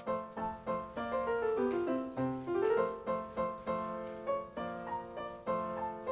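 Background piano music: single notes struck at an even pace, each ringing and fading, with a run that steps down and then back up about two seconds in.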